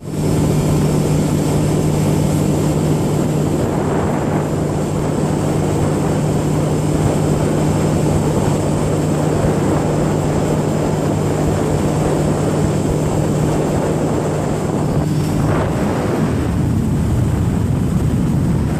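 Small boat's motor running steadily at cruising speed, a constant low drone over the rush of wind and water against the hull. About three-quarters of the way through, the engine drone drops away and gusty wind noise on the microphone and lapping water take over.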